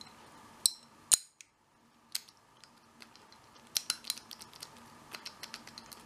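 American Lock 5300 series padlock worked with its key: metallic clicks and clacks as the key turns and the shackle is released and locked up again, with one sharp ringing click a little over a second in and softer ticks later on.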